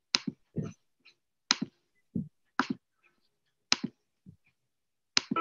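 Computer mouse clicking: five sharp clicks spaced about a second apart, each with a duller knock close behind.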